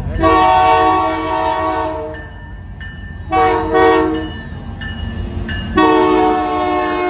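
Diesel locomotive air horn blowing a long blast, a short blast, then another long blast as the train passes close by, over the steady low rumble of the locomotive and rolling cars.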